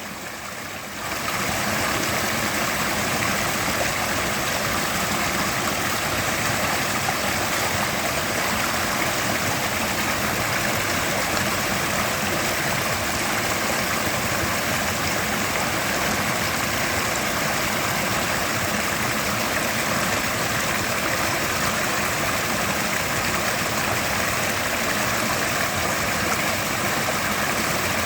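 Mountain river rushing steadily, a dense even wash of water noise; it is briefly quieter for the first second, then holds level.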